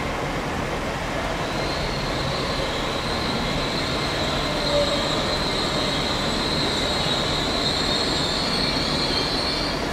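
Train running through a station with a steady rumble, joined about a second and a half in by a high-pitched metallic squeal that holds steady and stops near the end.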